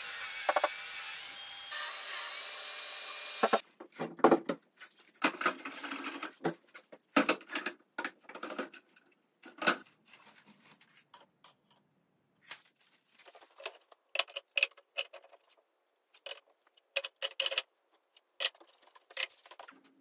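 A table saw runs steadily for about three and a half seconds, then cuts off suddenly. After that, oak strips clack and knock against each other and the workbench in irregular clusters as they are laid out side by side.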